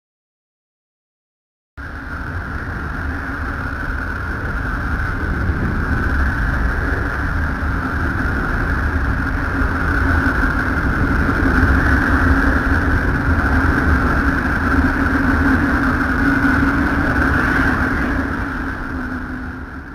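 A 'planet sound' space recording, sonified radio or plasma-wave data. It is a steady droning hum with a high whine over a deep rumble. It starts about two seconds in and fades out at the end.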